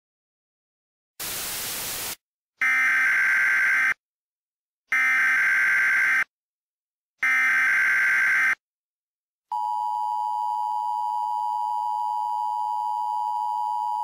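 Emergency Alert System broadcast tones. About a second in comes a short burst of static hiss. Then three identical shrill digital data bursts of the EAS header sound, and from about nine and a half seconds in the steady two-tone attention signal holds.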